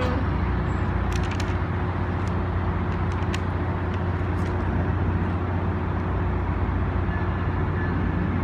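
Tri-Rail commuter train standing at the platform with its diesel locomotive running: a steady low hum and rumble, with a few light clicks in the first few seconds.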